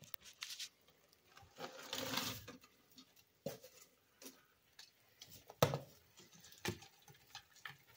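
A few hundred live fiddler crabs tipped from a jug onto sand: a short rustling pour about two seconds in, then scattered light clicks and taps as the crabs scramble over the sand and each other.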